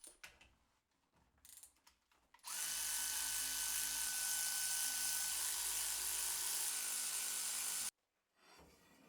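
Milling head of an Optimum TU3008G lathe cutting the metal fixture plate: a few faint clicks, then a steady loud hiss with a thin high whine starts about two and a half seconds in and stops abruptly near the end.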